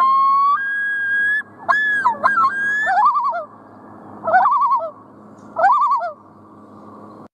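Common loon calling: long held notes that rise in pitch, a jump to a higher note, then three short bouts of quick wavering notes.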